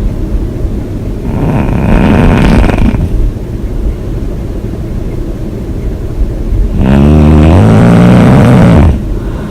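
A woman snoring loudly with her mouth open: two long, rough snores, one about a second in and one near the end, each lasting about two seconds, with quieter breathing between them.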